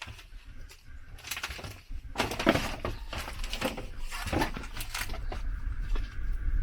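Clattering knocks and scrapes inside a derelict aircraft fuselage, coming in several irregular clusters, over a steady low rumble of wind on the microphone.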